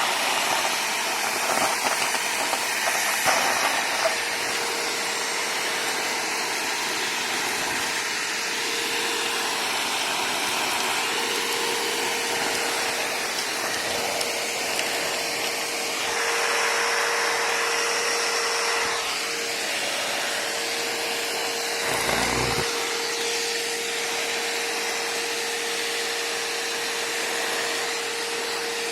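Bissell Rewind Premier Pet bagless upright vacuum cleaner running steadily: a rushing hiss with a constant motor whine, sucking up grass and dirt. It grows a little louder for a few seconds past the middle, with a short thump a little later.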